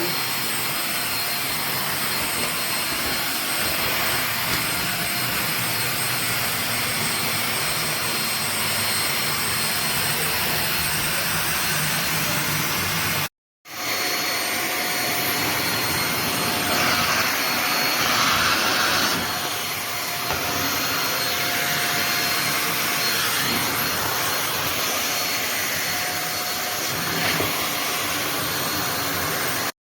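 Belaco Dual 700 W corded upright vacuum cleaner running: a steady motor whine with a high-pitched tone over the rush of air. It drops out completely for a split second about halfway through, then carries on.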